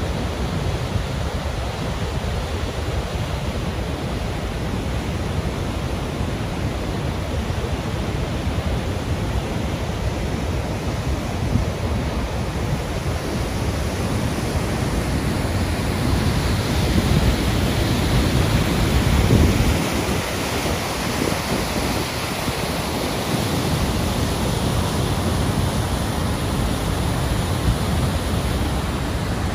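White-water rapids and small falls rushing over rock in a river gorge: a steady, even rush of water that swells briefly about two-thirds of the way through.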